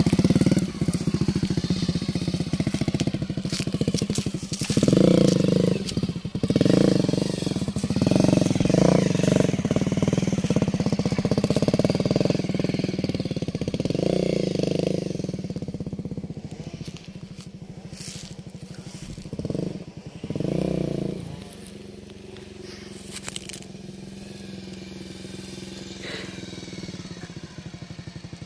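Bajaj Avenger motorcycle engine running, surging in loudness several times, then running more quietly and evenly for the last several seconds.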